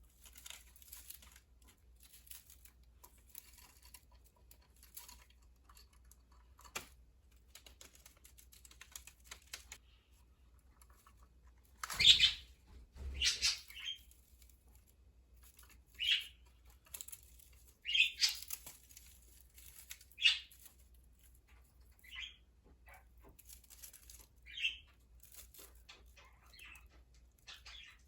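Pet budgerigars chirping in short, scattered calls, with a cluster of louder squawks about twelve to twenty seconds in.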